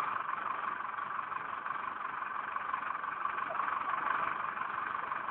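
Digger engine running steadily.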